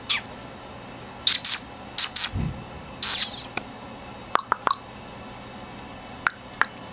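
Bengal kittens giving a few short, high-pitched mews and squeaks, with a soft low thump about two and a half seconds in and scattered sharp clicks in the second half.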